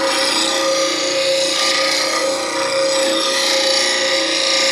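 An 8-inch bench grinder running with a steady hum while a steel bowl gouge is held against its wheel, giving a continuous hissing grind as the tip is rolled and rough-shaped freehand into a fingernail (Ellsworth) grind.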